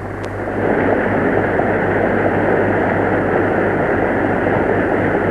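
Applause from a large assembly of people, swelling in during the first second and then holding steady, on an old muffled film soundtrack with a constant low hum.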